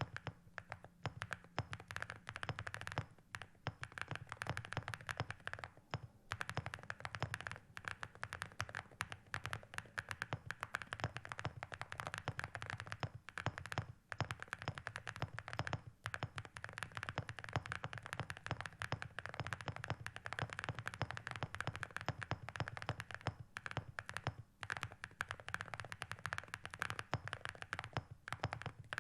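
Steady, fast typing on a mechanical keyboard: a dense, continuous run of key clacks with brief pauses between bursts.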